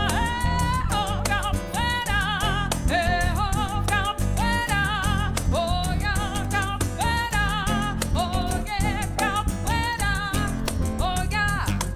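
Live band music: a woman sings long held notes with wide vibrato over acoustic guitar and percussion. Her voice stops near the end while the instruments play on.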